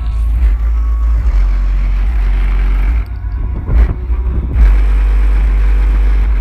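Loud, heavy car engine rumble, steady apart from a brief drop about three seconds in before it comes back at full strength.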